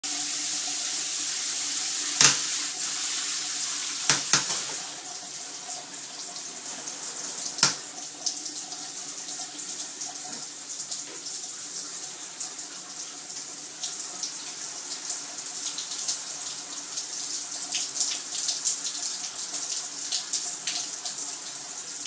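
Shower spray running steadily, a hiss of water falling onto a parrot and tiled shower wall, with a few sharp clicks about 2, 4 and 8 seconds in.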